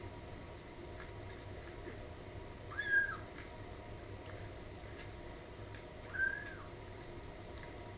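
Four-week-old kitten mewing twice, two short high mews about three seconds apart, each rising and falling in pitch.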